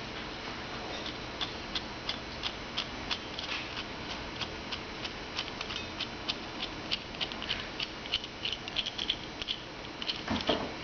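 Locking pliers being handled while their adjusting screw is backed out: irregular light metallic clicks and ticks, a few a second, with a short dull knock near the end.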